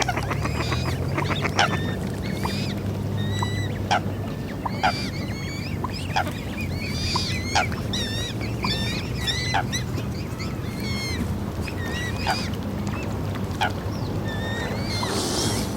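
Swans calling on the water: many short calls, some bending up and down in pitch, over a steady low rumble.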